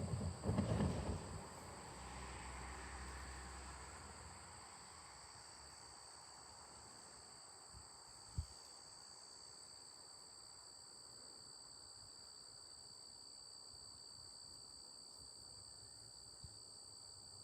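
Crickets trilling steadily in two high, unbroken tones. A brief rustling bump near the start is the loudest sound, and a single sharp knock comes about eight seconds in.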